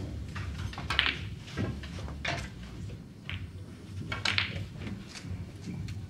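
Snooker hall room sound: a steady low hum with about six short knocks and clicks scattered through it.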